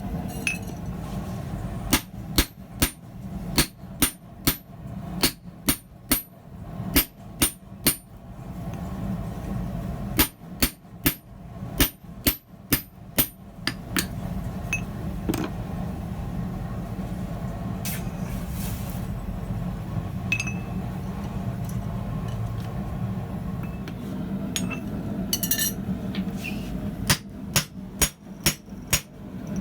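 Blacksmith's hand hammer striking hot steel on an anvil, in runs of sharp ringing blows about two a second, with a long pause in the middle. A steady low rumble runs underneath.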